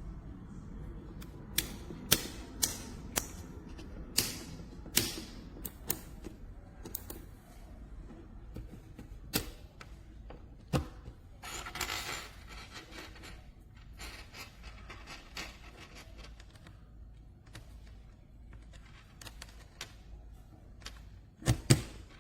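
Sharp, irregular clicks of toggle switches and keys being worked on a wooden busy board, several in quick succession during the first few seconds, then sparser, with a short rustle about twelve seconds in and a double click near the end.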